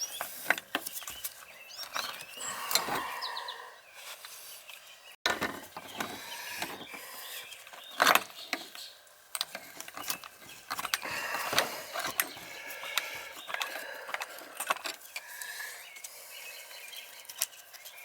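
Irregular metal clicks, clinks and scraping of hand tools working on the old outdoor shower fixture's brass screws and nuts, with a sharp knock about 8 seconds in.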